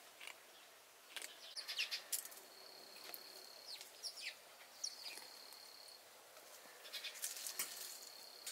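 Faint outdoor ambience: small birds chirping in short downward-sliding notes, with a steady high-pitched buzz that sets in about two and a half seconds in, breaks off around six seconds and comes back near the end. Light rustling and ticking sounds come and go, busiest around two seconds in and again near the end.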